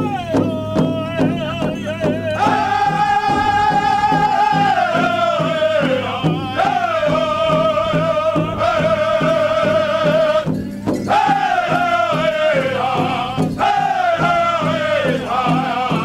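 Powwow drum group singing in unison over a steady drumbeat, held high notes stepping down in pitch phrase by phrase, in a live recording.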